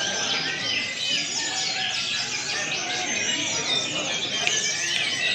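Many brown-chested jungle flycatchers singing at once, a dense, continuous tangle of high whistled notes and trills over a murmur of human voices.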